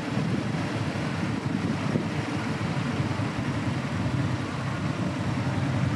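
Steady low rumbling outdoor background noise, even throughout with no distinct events.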